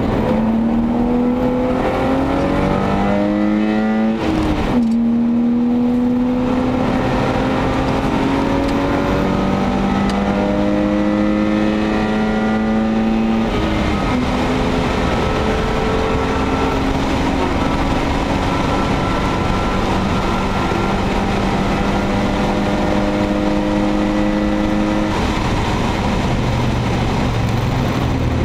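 In-cabin sound of a BMW E34 525i's 2.5-litre 24-valve inline-six running hard through the gears. The engine note rises steadily, drops back at an upshift about four and a half seconds in and again about halfway through, then climbs slowly. About three seconds before the end the note changes and drops.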